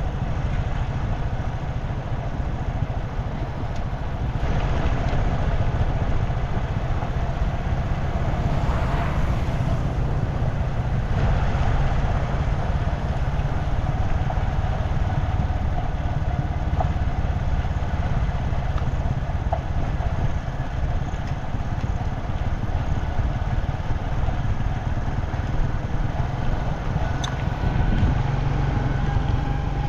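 A motor vehicle running steadily, with a constant low rumble and road noise that grows a little louder about four seconds in.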